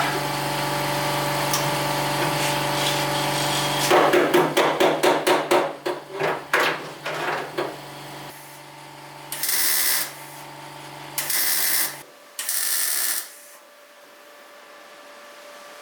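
Workshop power tools: a steady machine hum, then a quick run of sharp clattering strikes that thin out, then three short hissing bursts.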